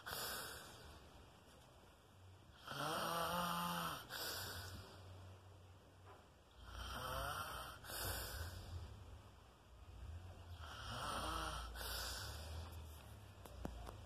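A sleeping woman snoring: three snores about four seconds apart, each followed by a short breath out.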